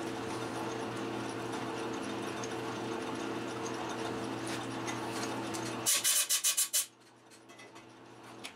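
Metal lathe running while single-point threading, a steady machine hum with several steady gear tones. About six seconds in comes a quick run of sharp clicks, and the running sound cuts off, leaving faint ticks.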